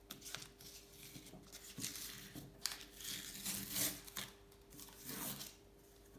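Painter's masking tape being pulled and torn and sheets of printer paper crinkling as they are handled, in short irregular rustles and tears.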